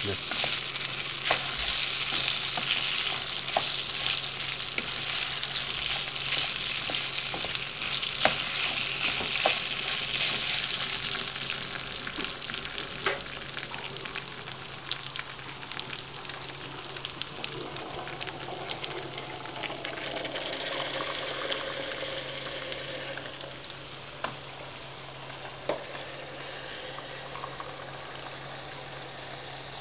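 Rice and vermicelli sizzling in olive oil in a frying pan as they are stirred with a wooden spoon, with a few sharp clicks of the spoon against the pan. The sizzle is strongest at first and fades through the second half as the grains toast.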